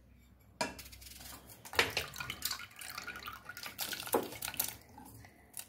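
Chopped tomato pieces tipped from a bowl into water in an aluminium pressure cooker, splashing and plopping in an irregular string of small splashes.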